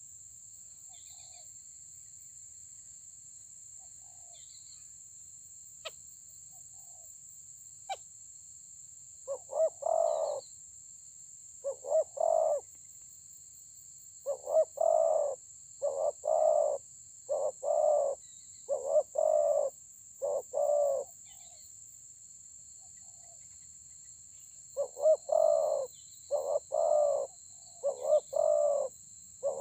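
Spotted doves cooing: repeated short two- and three-note coo phrases. They start about a third of the way in, fall silent for a few seconds, then resume near the end.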